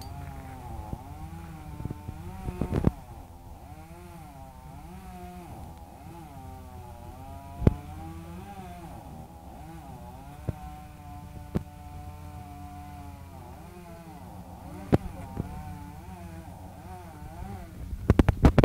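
Chainsaw running steadily while cutting, its engine pitch rising and falling with the load. A few sharp knocks come through, with a quick cluster of them near the end.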